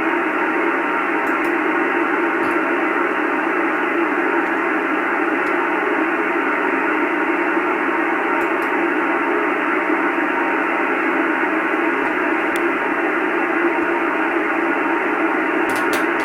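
HF amateur radio receiver on the 40-metre band hissing with steady band noise between transmissions, the hiss cut off sharply above and below like a voice channel's narrow passband.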